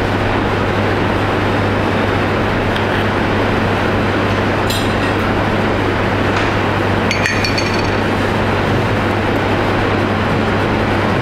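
Steady rushing noise and low hum of commercial kitchen ventilation. A spoon clinks twice against a metal bowl, about five and seven seconds in, the second with a short ring.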